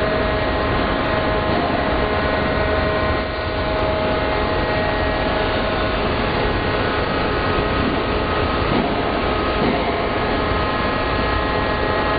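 Steady industrial machinery noise of a forging shop: a continuous, even rumble and hiss with a steady hum running through it, and no hammer blows.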